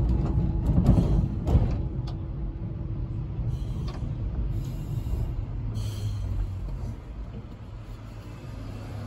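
W-class electric tram running along its track, heard from on board: a low rumble with a few sharp knocks in the first two seconds, getting quieter about seven seconds in.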